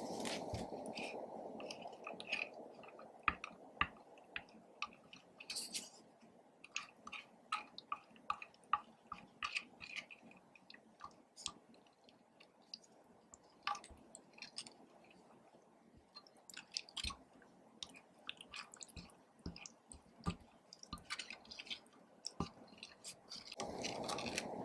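Slime being mixed and squished, giving many small irregular sticky clicks and pops. A soft hiss sits under it at the start and comes back near the end.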